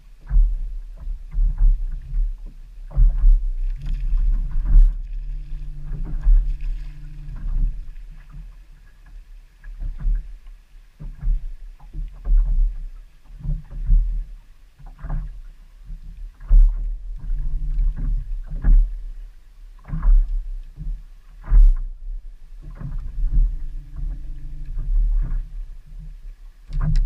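Water slapping against a small boat's hull, with irregular low thumps and knocks. A low hum comes and goes several times.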